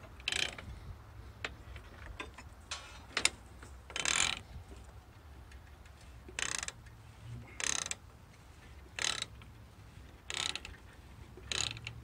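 Rusty setworks lever on an old Belsaw sawmill carriage being worked back and forth, its ratchet, pawl and gears rasping in short strokes, about eight of them, roughly every second and a half.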